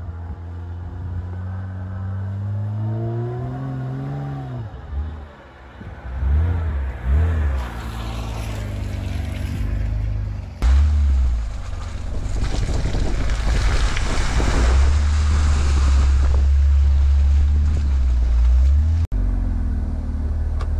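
Honda Ridgeline pickup's V6 engine revving as it drives along a muddy trail, its pitch rising and falling with the throttle. About halfway through, the sound changes abruptly to a closer, steadier engine rumble with a hiss over it.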